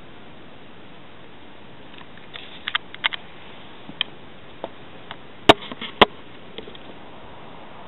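Scattered clicks and knocks of the camera being handled against a plastic window frame, the two loudest sharp knocks about half a second apart, over a steady hiss.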